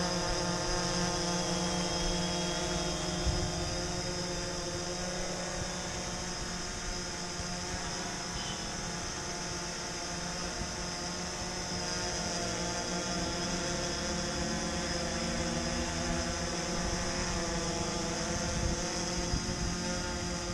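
DJI Phantom 3 Standard quadcopter hovering on its stock DJI propellers: a steady propeller buzz made of many held tones from its four brushless motors. In the second half the pitch wavers slightly up and down as the motors adjust.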